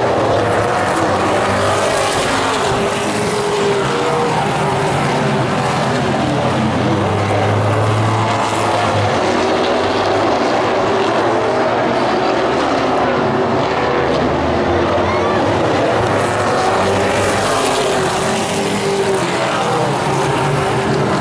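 A field of Pro Late Model stock cars racing on an oval, several V8 engines running loud at once. Their pitch rises and falls as the cars pass and come off the corners.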